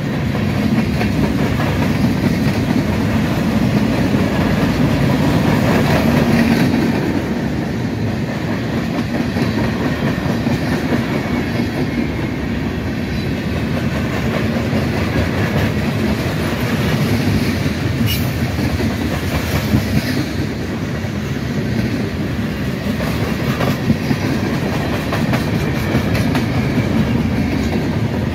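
Freight train cars rolling past, a steady loud rumble with clattering of wheels over rail joints and a couple of sharp clanks along the way.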